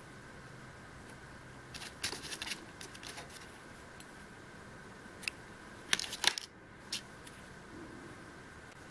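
Small clicks and rustles from fingers handling thread and rubber legs on a fly in a fly-tying vise, in two short clusters, over a faint steady high hum.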